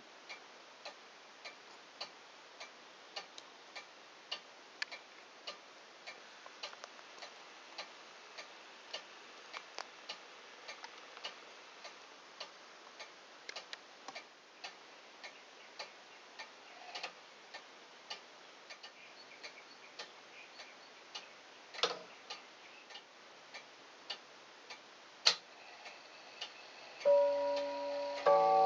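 Junghans A27 wall clock movement ticking steadily, with two louder clicks from the strike mechanism. Near the end it begins striking the hour bim-bam on its three chime rods: a single high-pitched rod, then the twin lower-pitched rods struck together, each stroke ringing on.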